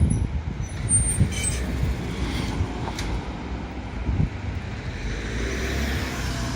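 Street traffic noise with a steady low rumble. A vehicle's tyre hiss swells about five to six seconds in as it passes close by.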